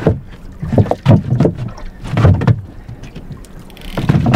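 Small wooden fishing boat on open water: a steady low hum under three loud surges of water washing against the hull, about one, two and four seconds in.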